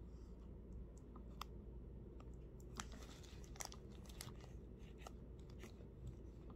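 Faint handling noise: a few scattered light clicks and a brief rustle about three seconds in, over a low steady room hum.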